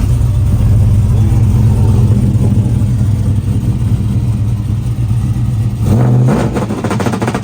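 Truck engine revved up and held at a steady rpm against a two-step launch limiter. About six seconds in, the held note drops away into a rapid string of exhaust pops and crackles.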